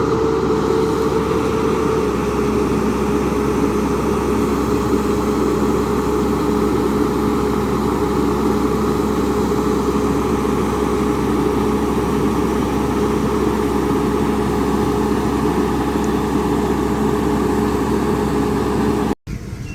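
Diesel engine of heavy farm machinery, a combine harvester or tractor, running steadily at a constant speed. It cuts off abruptly near the end.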